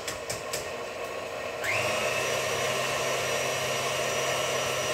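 Stand mixer starting up about a second and a half in, its motor whine rising and then running steadily as it mixes cake batter. A few light taps come just before it starts.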